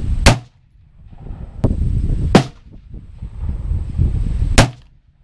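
AR-15 rifle firing three single sighting-in shots about two seconds apart, each a loud sharp crack. A fainter crack comes between the first two, and a low wind rumble fills the gaps.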